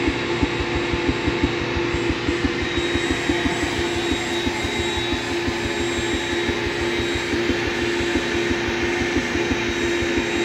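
Force/2 insulation vacuum machine running steadily with cellulose in its drum: a constant motor hum with a fast, even low pulsing underneath.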